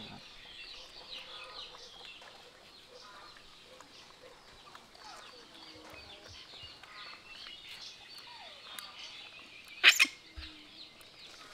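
Birds chirping and clucking in the background, many short high calls, with one short loud cry about ten seconds in.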